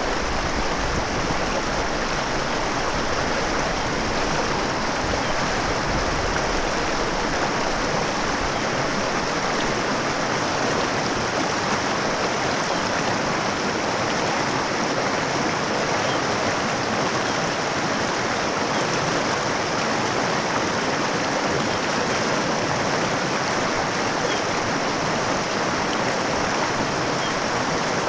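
Mountain stream running steadily over rocks, an even rush of flowing water.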